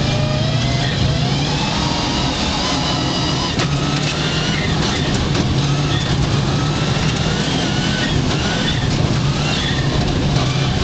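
Rally car engine heard from inside the cabin, revving hard under acceleration, its pitch climbing and dropping back again and again as it goes through the gears, over steady road noise.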